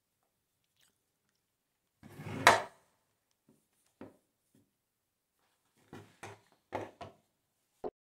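Old metal hand drill handled on a wooden workbench: one loud knock as it is set down about two and a half seconds in, then a few lighter knocks and clunks of metal and wood near the end.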